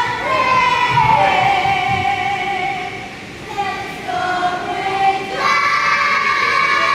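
A group of children and women singing a song together in long held notes, with a short pause about halfway through.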